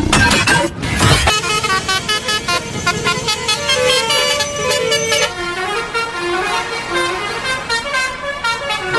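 Bus telolet Basuri multi-tone horn playing a tune of quick stepping notes, after a rumbling noisy burst in the first second or so.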